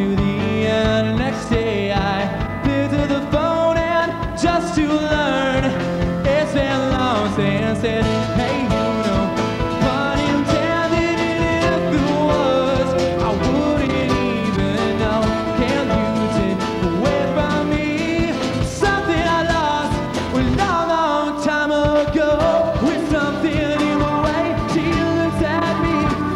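A live band playing a song: a male singer with acoustic guitar, electric bass and drums, with a steady beat.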